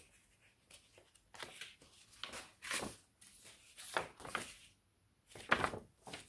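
Sheets of dried tea- and coffee-dyed paper rustling and crackling as they are handled and turned over, in several short swishes with the loudest near the end.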